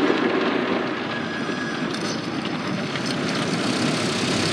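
Water spray and machinery of a tunnel car wash working over a truck, heard from inside the cab as a steady rushing noise.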